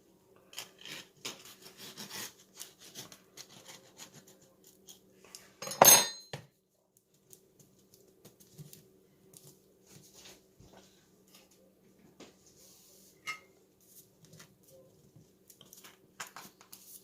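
Metal clinks and scrapes of a knife against an open-ended tin can as canned brown bread is worked out of it, with one loud, ringing metallic clank about six seconds in, then scattered small clicks.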